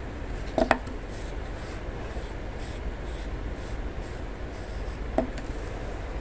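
Steady white-noise hiss over a low rumble, broken by a sharp knock under a second in and a softer one about five seconds in.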